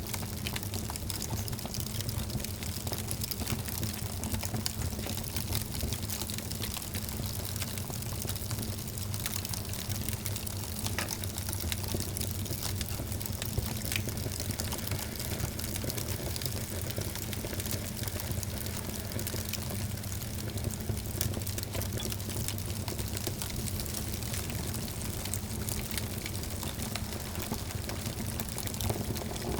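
Fire burning in a fireplace, crackling steadily: many small sharp pops scattered over a constant hiss and low rumble.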